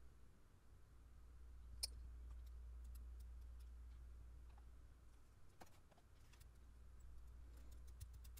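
Near silence: faint room tone with a low steady hum, a single sharp click about two seconds in and a few faint clicks later.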